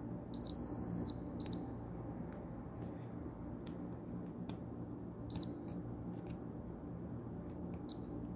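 Fluke digital multimeter's beeper sounding in diode-test mode as its probes touch a diode on the board: one high beep of under a second, then three short beeps, with faint clicks from the probe tips. The beeping marks the diode reading short.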